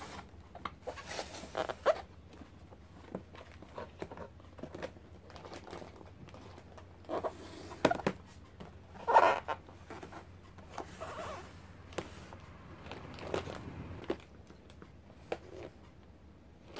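Plastic cantilever storage box being handled: its clear fold-out trays click and knock against the plastic base as they are moved and folded closed, with brief rustling, the loudest about nine seconds in.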